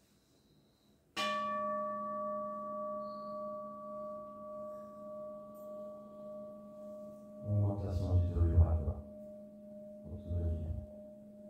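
Large metal singing bowl struck once with a mallet about a second in, ringing with a low hum and several higher overtones that waver in loudness and fade slowly. Twice in the second half, a deep male voice sounds briefly over the ringing.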